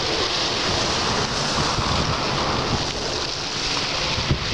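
Small sea waves washing onto a shingle beach, with wind buffeting the microphone in a steady low rumble.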